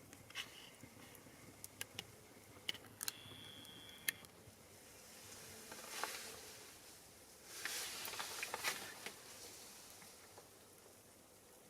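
Small fire of pine cones and cherry branches crackling in a mini fire stand: sharp pops in the first few seconds with a brief thin whistle about three seconds in, then two swells of hissing flame in the middle and about eight seconds in.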